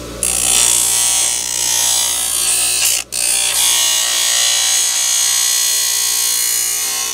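Baldor bench grinder running with a plastic wheel center cap pressed against its grinding wheel, giving a loud steady grinding hiss as the cap's inside lip is shaved down. The hiss stops for a moment about three seconds in as the cap is lifted off, then resumes over the motor's hum.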